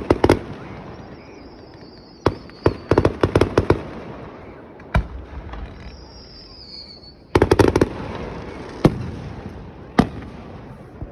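Fireworks display: aerial shells bursting in quick crackling clusters of sharp bangs, with single booms between them.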